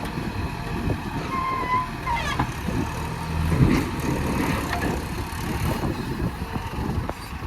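JCB 3DX backhoe loader's diesel engine running steadily, with a short high tone about a second and a half in.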